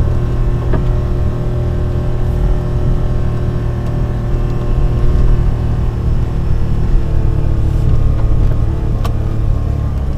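A kei-truck camper's small engine running steadily under load, labouring through soft beach sand in four-wheel drive.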